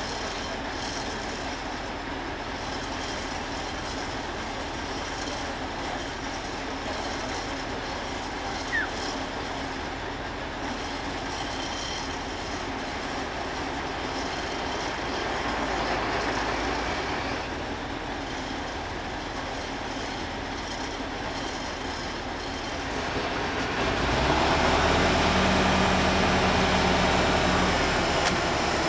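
Mobile crane's diesel engine running steadily with a rumbling noise. About 24 seconds in it grows louder and a steady low hum comes in.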